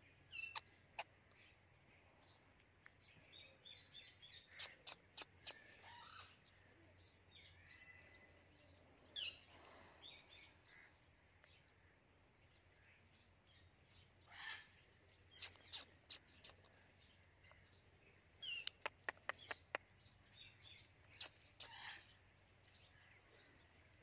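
White Indian ringneck parakeet making faint short chirps and clicks in scattered bunches, with a few longer single chirps between them.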